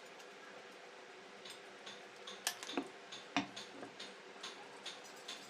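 Hand work on a reduction gearbox: a run of light clicks, about two a second, with three sharper knocks near the middle.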